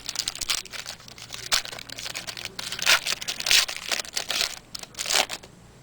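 Thin, candy-wrapper-like foil pack of 2009 Playoff Prestige football cards crinkling and tearing as it is ripped open, a run of irregular rustles and crackles that dies down near the end.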